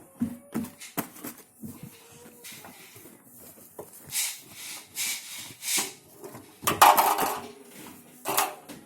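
Laundry being pulled out of an Indesit Innex washing machine's drum: fabric rustling with scattered knocks and clatter, loudest about seven seconds in.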